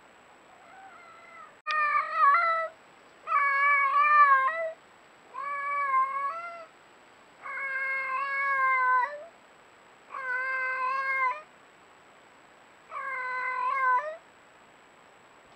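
Cat yowling close to the microphone: a string of long, drawn-out, wavering meows, six loud ones about two seconds apart after a fainter first call.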